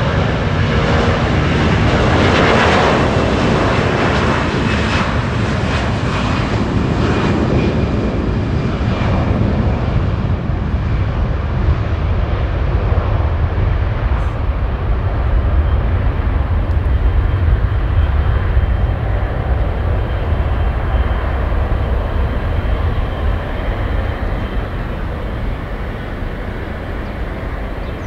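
Jet airliner's engines, loud. A rushing hiss in the first ten seconds or so fades away, leaving a steady low rumble that goes on.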